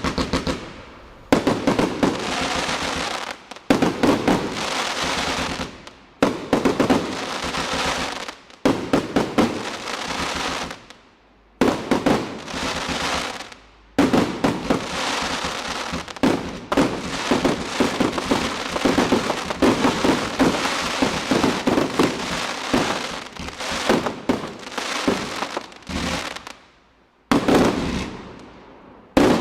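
A 108-shot combined consumer firework cake firing its tubes in volleys. Each volley is a rapid cluster of sharp shots and bursts that fades out, with a new volley starting every two to three seconds.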